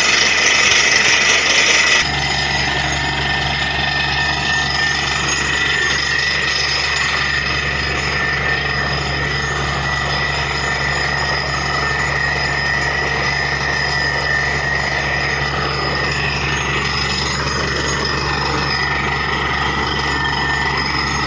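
Truck-mounted borewell drilling rig running steadily: a low engine drone with steady high-pitched whines over it.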